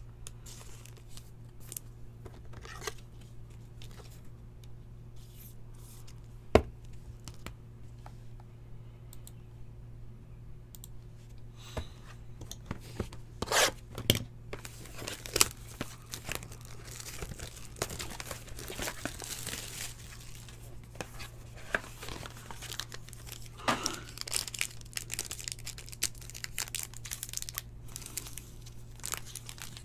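Foil trading-card pack wrapper being crinkled and torn open by hand, with scattered taps and rustles of cards being handled. Sparse for the first dozen seconds, then busier through the second half, over a faint steady low hum.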